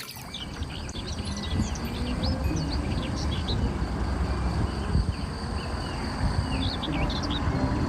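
Small birds chirping many times in short quick notes over a steady low rumbling noise.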